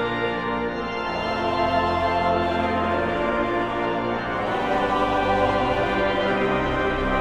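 Hymn tune played on organ in full, sustained chords that change every second or so.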